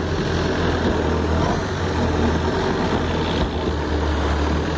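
Thai longtail boat's engine running steadily at speed, a deep constant hum, with water splashing at the bow.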